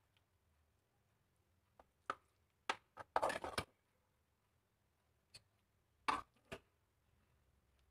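Metal spoons clinking and scraping against a frying pan and a metal baking tray while scooping minced chicken filling: a few sharp clicks, with a short scrape about three seconds in and another pair of clinks around six seconds in.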